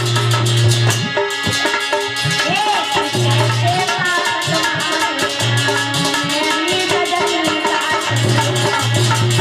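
Bhajan music with no vocals: hand drums and fast rattling percussion over a low drone, with a melody line gliding through the middle of the passage.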